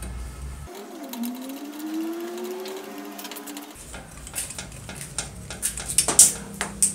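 Metal clicks and rattles as parts inside an old circular saw's rusty blade guard are handled and worked loose, with a few sharp clicks near the end. Before that, for about three seconds, there is a low whirring tone that dips and then rises slowly in pitch.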